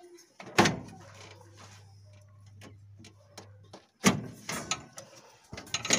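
Sharp knocks and clicks of plastic and metal parts as a car's radiator cooling fan assembly is worked into place in the engine bay: one loud knock about half a second in, another about four seconds in, then lighter clicks.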